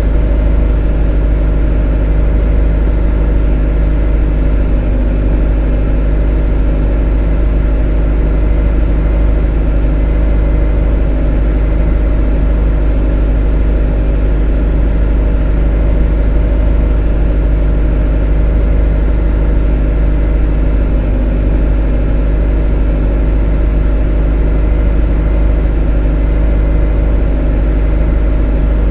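A motor running at a steady, unchanging speed: a loud, monotonous drone with a deep hum and a stack of steady tones above it.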